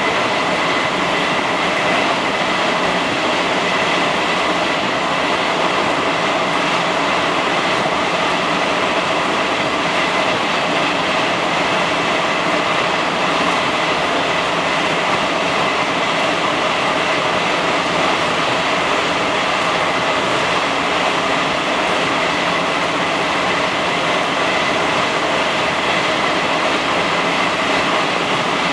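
Passenger train running at speed through a tunnel, heard inside the carriage: a steady loud roar of wheels and rushing air, with a thin high-pitched tone held throughout.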